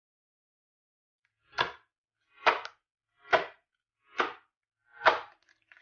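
Clear slime handled by hand, five short squishing slaps a little under a second apart.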